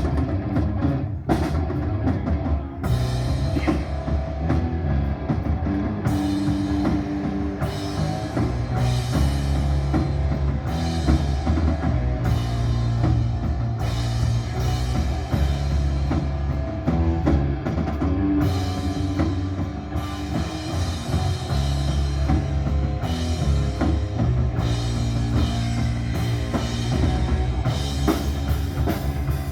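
A rock band playing: drum kit and guitar over a pulsing bass line, with no pause.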